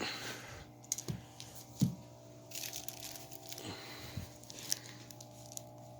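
Paper-wrapped firecracker bricks being handled, their wrapping crinkling and rustling, with a few soft knocks as they are picked up and set down.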